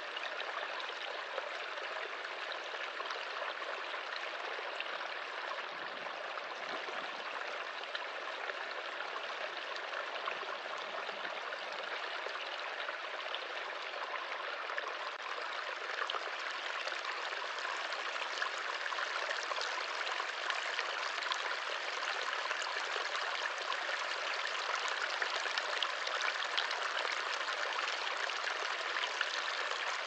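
Small forest stream trickling over stones, a steady wash of running water that grows slightly louder in the second half.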